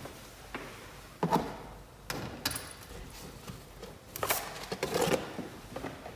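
Handling noise: a few separate knocks, clatters and rustles as a box of felt-tip pens and pens are fetched and set down, the loudest knock about a second in and another cluster around four to five seconds in.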